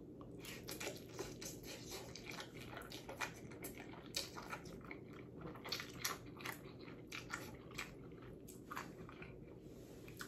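Faint mouth noises of a person eating noodles with a fork: soft, irregular slurping, smacking and chewing sounds, easing off about nine seconds in.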